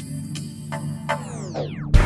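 Electronic background music with a synthesizer over a steady low pulse and regular short hits. Near the end it falls away in a steep downward pitch sweep.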